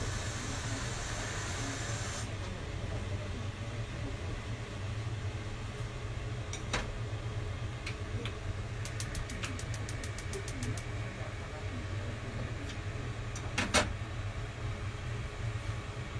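Kitchen tap water running into a pot for about two seconds, then a quick run of about a dozen clicks, some six a second, from a gas stove's igniter. One sharp knock near the end is the loudest sound, over a steady low hum.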